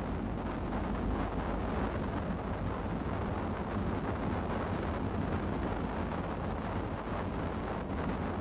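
Steady wind noise on the microphone over a low rumble, with no clear separate knocks or cracks, taken from a ship moving through broken sea ice.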